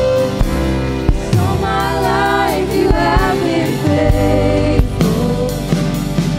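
Live contemporary worship band playing a slow song: a woman's lead vocal with backing voices over drum kit, bass, acoustic guitar and keyboard. The sung line bends and wavers about a second in and again past the middle, over a steady drum beat.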